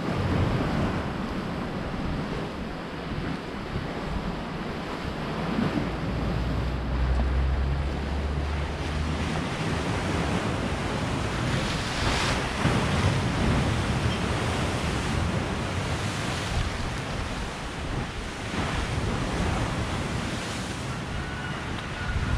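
Waves breaking on the shore, swelling and easing every few seconds, with wind buffeting the microphone.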